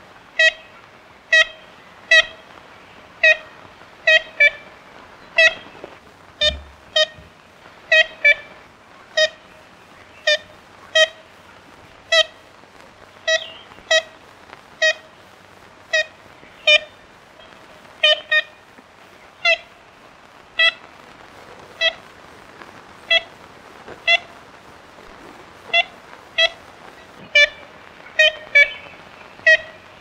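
Ivory-billed woodpecker giving its nasal, tin-horn-like 'kent' calls: short notes, some single and some in quick pairs, about one to two a second, over a faint steady hiss.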